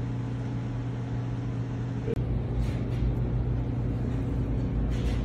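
A steady low machine hum, with a deeper rumble growing stronger after a brief break about two seconds in.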